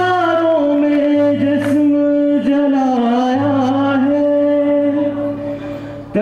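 A man singing one long wordless held note that sags in pitch around the middle and rises again, over a steady low accompaniment from an acoustic guitar. The note breaks off just before the end.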